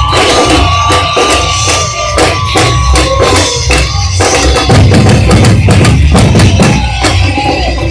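Carnival batucada drum ensemble playing a fast, driving samba rhythm on many drums at once. A steady high tone sounds over the first three seconds, and about four seconds in the deep bass drums come to the front.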